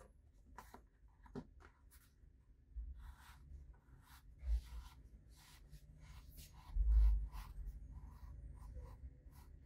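Tailor's chalk scratching along the edge of a cardboard template onto wool jacket fabric, a series of short, faint strokes. A couple of dull low bumps come in between, the loudest about seven seconds in.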